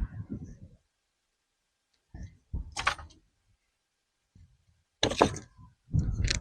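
Bricks being handled and set down: four separate clunks and scrapes with quiet between them.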